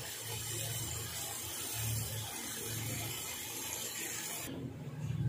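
Water being poured by the cupful into a pot of fried chicken masala, a steady splashing hiss that stops about four and a half seconds in.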